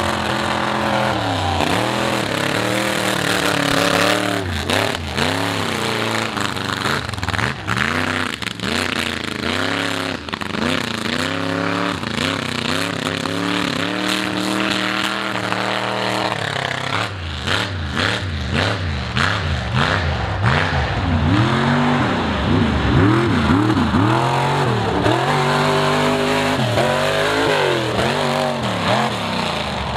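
Mega trucks' engines revving hard, the pitch climbing and dropping again and again as one truck after another throttles up and lets off, with stretches of sharp crackling.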